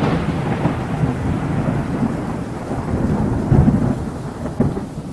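Cinematic intro sound effect: a deep, thunder-like rumble with a noisy hiss on top, slowly fading.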